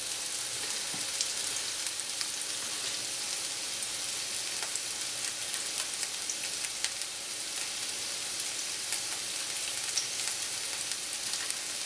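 Chopped red onion frying in extra-virgin olive oil in a nonstick pan: a steady sizzle with scattered small pops as the onion starts to soften.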